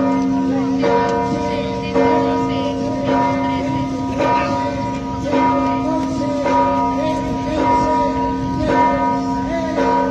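Church bell ringing, struck about once a second, each stroke's ring carrying on into the next, with voices murmuring underneath.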